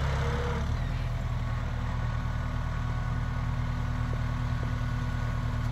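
Kubota tractor's diesel engine running steadily at a constant pitch under load as it pulls a pipe-layer tine through the ground, cutting a trench.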